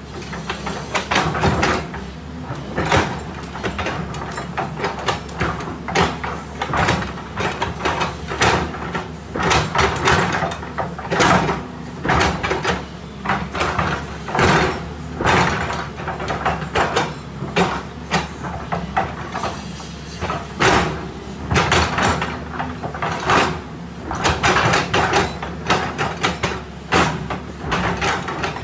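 JCB tracked excavator's diesel engine running steadily while its steel bucket scrapes and drags soil along the ground, with frequent irregular clanks and scraping knocks over the engine hum.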